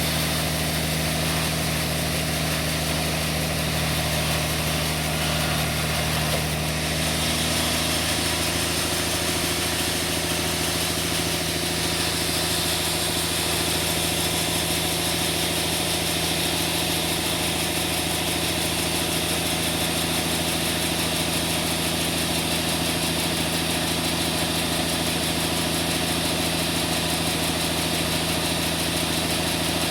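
Sawmill machinery running steadily: a continuous engine hum with several steady tones that shift in pitch about seven seconds in, then hold again.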